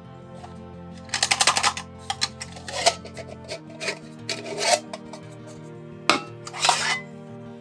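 Nested titanium camp mugs being slid apart and handled: metal rubbing and scraping, with a quick rattle of clicks about a second in and several short scrapes after.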